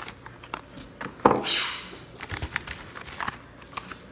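Plastic packaging bags crinkling and items knocking about inside a cardboard box as they are handled. A sharp knock about a second in is followed by half a second of rustling, then scattered light taps.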